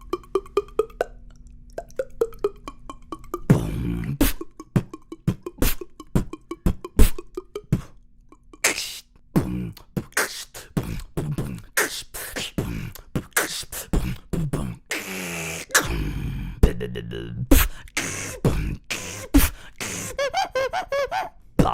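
Vocal beatboxing: a run of mouth-made drum sounds, with sharp clicks, kick and snare hits and hissing hi-hats, mixed with short pitched vocal tones. It starts as light pitched clicks and builds into a fuller, denser beat after a few seconds.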